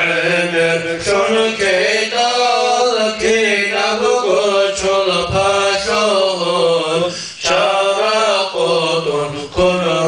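A man chants an Islamic du'a (supplication) after a Mawlid in a melodic, drawn-out voice, phrase after phrase with short breaths between them. A steady low tone holds underneath the chant.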